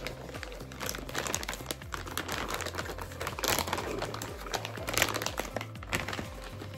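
Clear plastic bag crinkling and rustling as a boxed device is lifted out and unwrapped, in irregular crackles, loudest about five seconds in.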